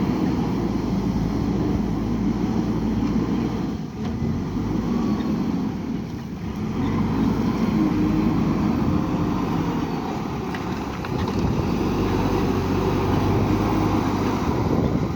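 JCB 3DX backhoe loader's diesel engine working under load, its revs rising and falling every few seconds.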